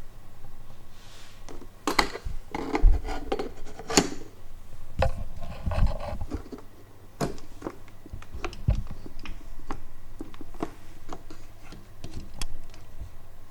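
Hands working on a folding bike's front bracket: irregular clicks, knocks and scraping of metal parts and tools being handled and fitted. The loudest knocks come about two and four seconds in.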